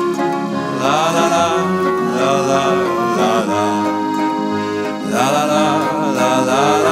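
Waltz music, a melody rising and falling in repeated phrases over a steady accompaniment.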